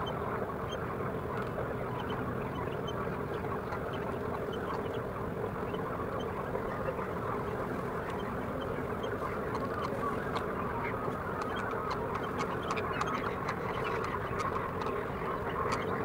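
A flock of many birds calling at once, a steady dense chorus of overlapping calls that keeps on without a break.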